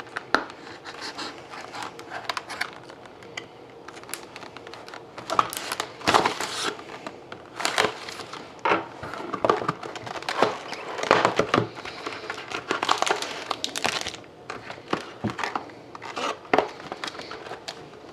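Plastic wrapping on a sealed trading-card box and pack crinkling and tearing as it is opened: irregular crackles and rustles.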